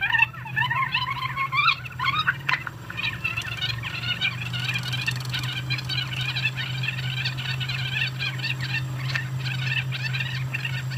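Webster Chicago Model 80-1 wire recorder in rewind, the recorded voices on the wire racing past the head as fast, squeaky, chipmunk-like chatter over a steady low hum. The chatter climbs higher and gets denser after about two seconds.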